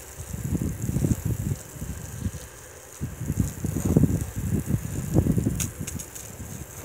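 Water from a hose spraying and splashing onto a waxed flat panel, rinsing off degreaser, in uneven surges, mixed with gusty low rumble from wind on the microphone.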